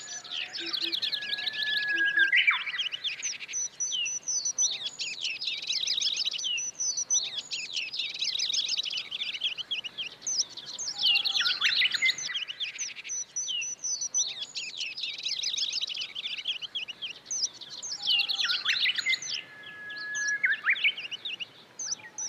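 Birds chirping and twittering: dense runs of quick high notes and trills, coming in bursts every few seconds.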